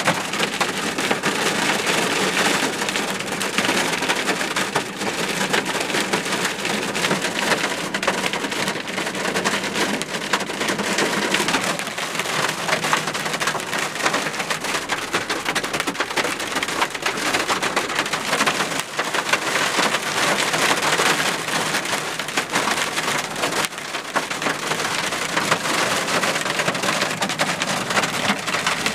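Hail and heavy rain pelting a car's windshield and body, a dense, steady clatter of countless small impacts heard from inside the car.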